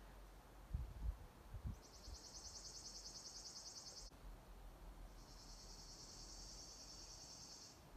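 A few low thumps about a second in, then an insect trilling in two high-pitched, rapidly pulsing bursts of two to three seconds each.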